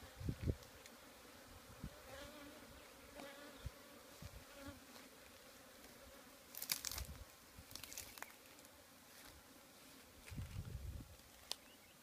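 Honey bees buzzing around an opened top-bar hive, stirred up and agitated after a comb bar was lifted. Single bees' buzzing rises and falls in pitch as they fly close past. A few sharp knocks and rustles come about halfway through.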